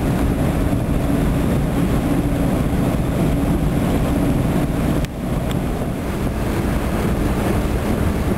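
Tugboat's diesel engine running steadily as the boat passes close by, with wind buffeting the microphone. The sound dips briefly about five seconds in, then carries on.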